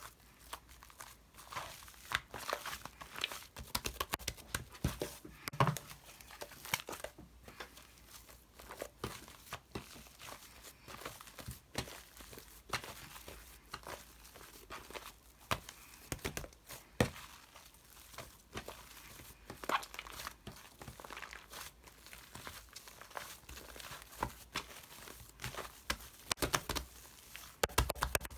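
Irregular crinkling and crackling: a dense run of small, sharp clicks and rustles with no steady rhythm.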